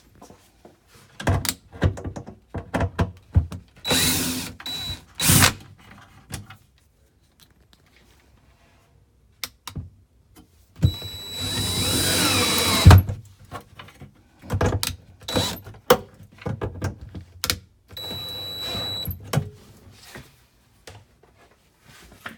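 Cordless drill-driver running in short bursts as drawer-slide screws are backed out and driven in, the longest run about two seconds near the middle with a rising whine. Knocks and clicks of handling the slide and screws come in between.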